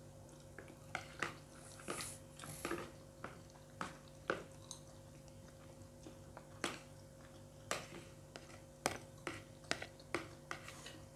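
Spoons and forks clicking and scraping against plates in short, irregular clinks while two people eat fried rice, with some chewing. A faint steady hum runs underneath.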